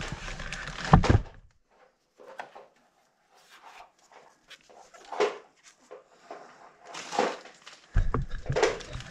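Clear plastic bag crinkling and rustling as it is handled, with scattered light knocks. A sharper knock comes about a second in, and the handling noise gets louder near the end.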